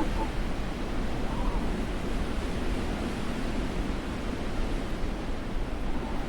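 Steady rushing ambient noise with a deep rumble underneath, a sound-effect bed.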